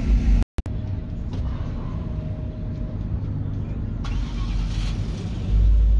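A car engine running steadily, with the sound cutting out for a moment about half a second in. Wind rumbles on the microphone from about five and a half seconds in.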